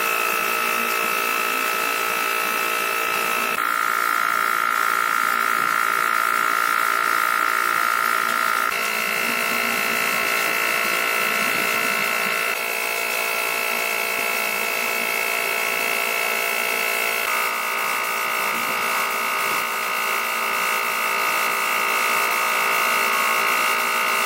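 A small electric motor, such as a power tool, whining steadily at a high pitch. The pitch shifts abruptly several times, as if clips of it running were cut together.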